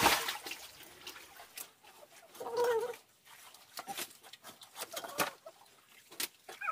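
Scattered knocks and rustles of stones and dead leaves being moved by hand in a rocky streambed, starting with a sharp knock. A short pitched call is heard about two and a half seconds in.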